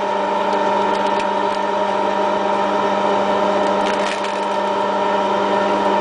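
Electric wire stripping machine running with a steady hum as thick aluminium cable is drawn through its blades, slitting the insulation. A few sharp cracks come through, about a second in and again around four seconds in.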